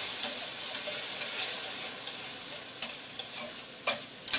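Chicken breast and bell peppers with soy sauce sizzling in a frying pan as they are stirred, the utensil clicking and scraping against the pan several times, sharpest about four seconds in.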